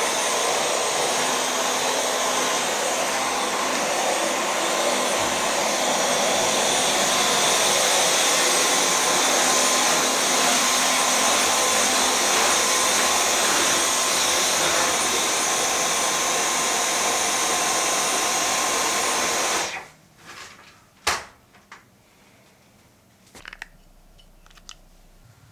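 A small motorised appliance running with a steady whooshing noise, cutting off suddenly about twenty seconds in, followed by a few faint clicks and one sharp click.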